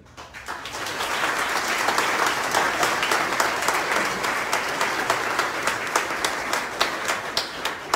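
Audience applauding, swelling over the first second and holding steady, with sharp individual claps from someone close by standing out; it dies away near the end.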